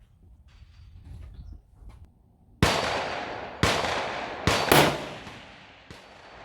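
Rifle shots: four sharp cracks in about two seconds, starting about two and a half seconds in, each trailing off in a long echo.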